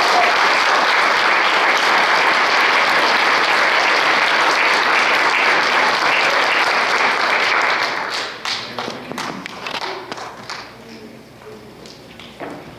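Audience applauding, a dense steady clapping that dies away about eight seconds in, with a few scattered claps trailing off.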